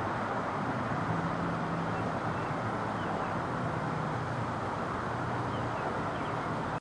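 Steady jet roar of a Boeing 777 airliner on final approach with its landing gear down, with a low hum underneath.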